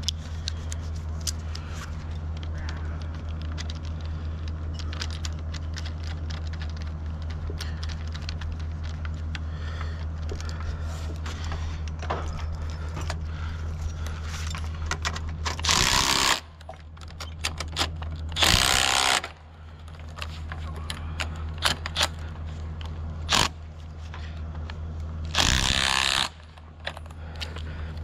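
Small clicks, rattles and scrapes of cable hardware being handled on an aerial strand, over a steady low hum. Three loud bursts of breath close to the microphone cut in, two about halfway through and one near the end.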